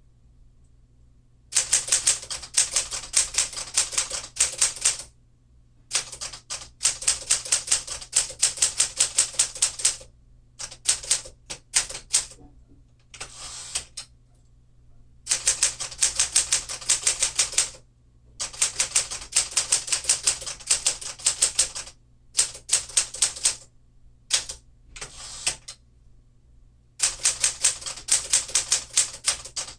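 Typing on a 1952 Smith-Corona Clipper manual portable typewriter: rapid keystrokes, the typebars striking the platen, in runs of a few seconds broken by short pauses.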